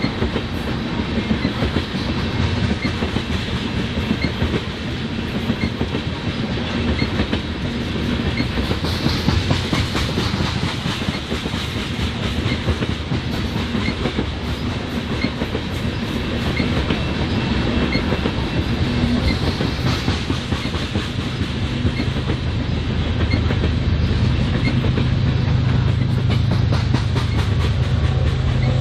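BNSF freight train cars rolling past, their steel wheels clicking steadily over the rail joints. A deeper low hum builds over the last few seconds.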